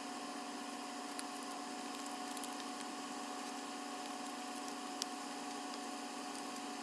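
Steady hiss and low electrical hum of quiet room tone, with a few faint light ticks about a second in, around two seconds in and about five seconds in.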